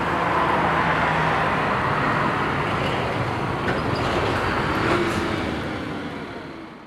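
Steady rushing background noise that fades out near the end.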